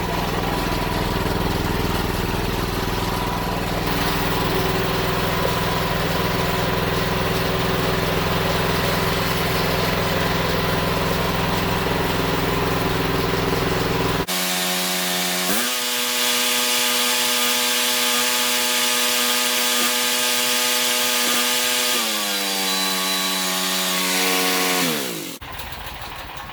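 Honda GX390 single-cylinder engine on a portable generator running steadily after a successful restart. About fourteen seconds in the sound changes abruptly, and from about twenty-two seconds its pitch falls as the engine winds down and stops.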